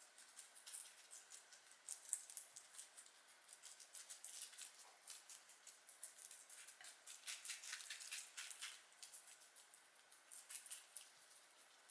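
Guinea pigs chewing lettuce and carrot: quiet, rapid crisp crunching clicks, busiest in the middle.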